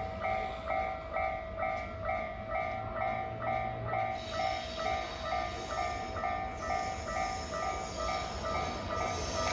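Japanese level-crossing warning bell ringing steadily, about two electronic dings a second. Under it, the rail noise of an approaching train with a JNR EF65 electric locomotive swells from about four seconds in and grows louder near the end.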